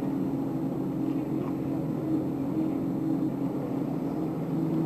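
Steady low hum of a motor, with a few constant tones over a faint even hiss.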